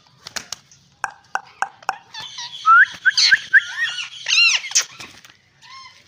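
Parakeet calling: a few short clicks, then a run of quick chirps and squeaks that rise and fall in pitch, busiest over the middle few seconds.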